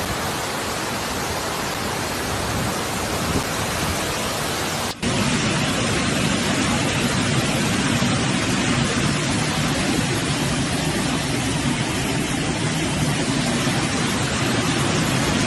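Storm water noise from heavy rain and flooding: a steady, even rushing hiss with no pitch. About five seconds in it cuts to a second, similar stretch with a fuller low rumble.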